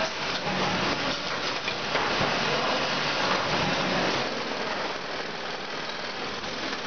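Automatic dog-food bagging line running: a steady mechanical noise from the packing machinery and the bag conveyor, a little quieter from about four seconds in.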